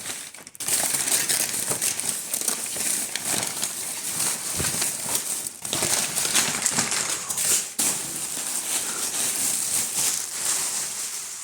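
Continuous rustling and crinkling as a padded puffer jacket is handled and unpacked, with a couple of brief pauses.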